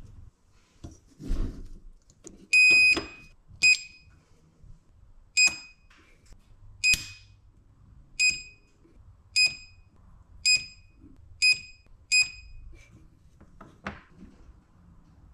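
Portable battery-powered spot welder firing as its leads weld nickel strip onto 21700 lithium-ion cells: nine short electronic beeps about a second apart, each with a sharp snap of the weld, the first beep a little longer.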